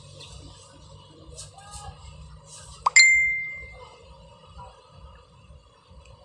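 A short click, then a single bright ding about three seconds in that rings out and fades over about a second, over a faint steady hum.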